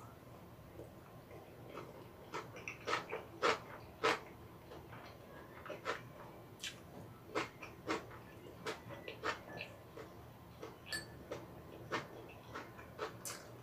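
Close-miked eating sounds: chewing and mouth smacks, with wooden chopsticks clicking against a rice bowl, an irregular string of short clicks.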